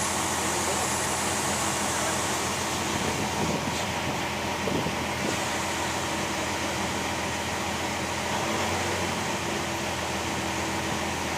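Canal boat's engine running steadily, with a constant rushing noise over it.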